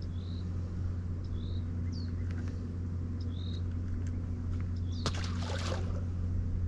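Steady low hum of the bass boat's motor, with short high chirps every second or so and a brief rushing noise about five seconds in.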